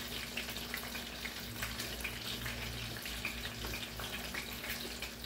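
Hot oil sizzling and crackling steadily in a deep fryer, with a low steady hum beneath.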